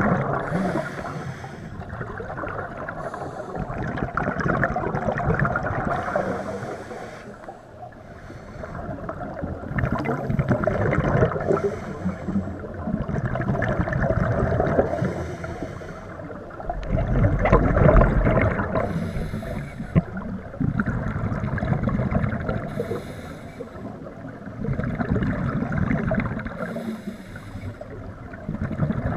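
Scuba diver breathing through a regulator underwater: a hissing breath in through the demand valve, then a gurgling rush of exhaled bubbles, repeating in a slow, regular rhythm about every four seconds.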